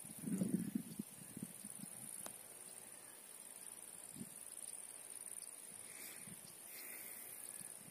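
Faint, steady high-pitched chirring of grassland insects such as crickets, with a brief soft low sound about half a second in.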